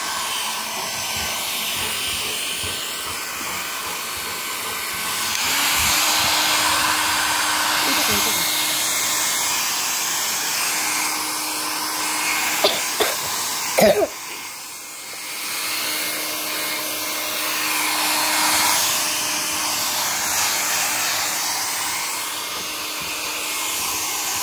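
Handheld electric hair dryer blowing steadily while drying a dog's coat, its level rising and falling as it is moved about. A few short sharp knocks come about halfway through, followed by a brief drop in the blowing.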